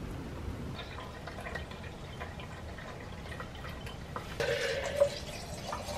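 Milky liquid trickling and dripping as a blended mixture is poured from a blender jar into a cloth-lined bowl, then squeezed by hand through the cloth into a metal mesh strainer over a pot. It grows louder about four seconds in.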